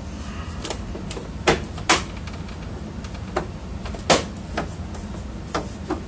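A series of sharp, irregularly spaced clicks from a screw being backed out with a Phillips screwdriver from the plastic back cover of an HP TouchSmart 320 all-in-one PC. The clicking is the sign that the screw is nearly all the way out.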